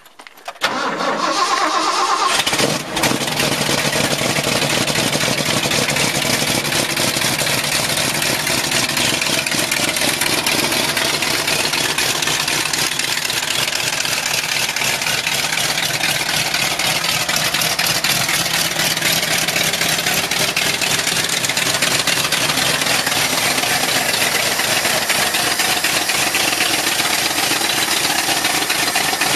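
1979 Ford F-150's 460 cubic-inch big-block V8 cranking on the starter for about two seconds, catching, and then idling steadily.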